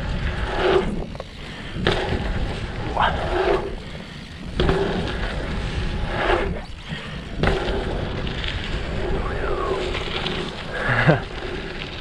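Mountain bike ridden through a dirt-jump line, heard from a helmet-mounted camera: wind buffeting the microphone and tyres rolling over dirt, with several sharp knocks spread through the run.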